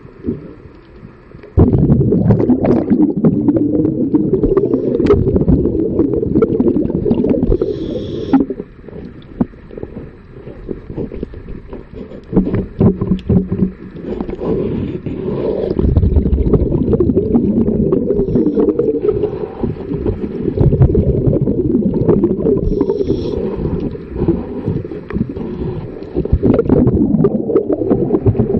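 Underwater rumbling and gurgling of a scuba diver's breathing bubbles at the microphone, starting suddenly and coming in long loud stretches with quieter dips.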